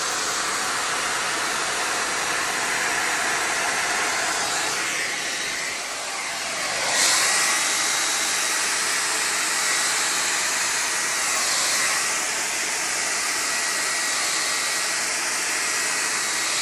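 Handheld hair dryer with a diffuser attachment running steadily, blowing wet acrylic paint across a canvas, with a faint steady whine under the rush of air. The air noise dips a little about six seconds in, then comes back louder and holds.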